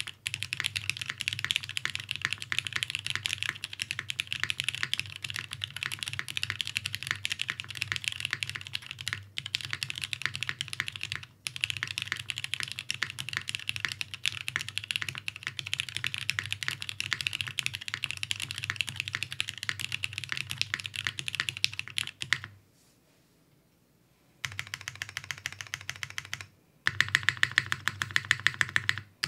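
Fast, continuous typing on a custom top-mount mechanical keyboard (Merisi Works Ottantaquattro) with lubed vintage Cherry MX Black linear switches, a carbon fiber plate and GMK doubleshot ABS keycaps. The typing breaks off for about two seconds roughly three quarters of the way through, then resumes, with a stretch of louder keystrokes near the end.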